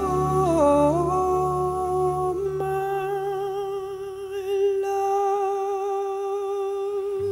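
Music: a singer holds one long wordless note over soft accompaniment. The note dips briefly under a second in, then holds steady with a slight waver, while the low backing drops away about three seconds in.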